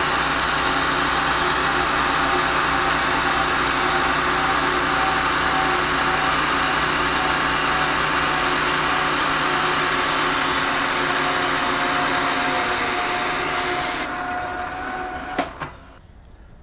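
Knee milling machine running as it mills the end of an aluminium plate square: a steady hiss with a constant whine. Near the end the hiss cuts off suddenly, the whine fades out, and a single click follows.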